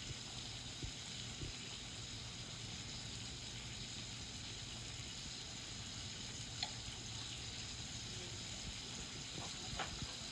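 Bacon strips sizzling in a hot pan, a steady hiss, with a few light clicks and taps near the start and again later on.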